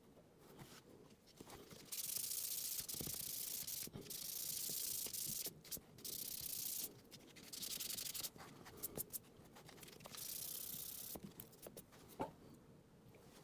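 Scratchy rubbing strokes on the door trim during preparation for a clear coat. They come as a run of separate one- to two-second stretches of hissing friction noise, with small clicks and taps between them.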